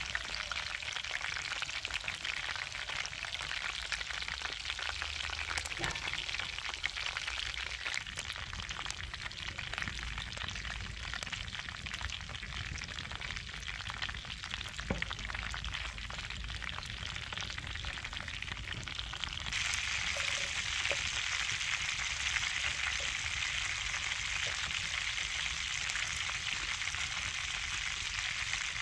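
Chicken leg quarters and butter frying in pans over a wood fire: a steady sizzle that gets louder for the last third. By the end, sliced mushrooms are frying in the butter.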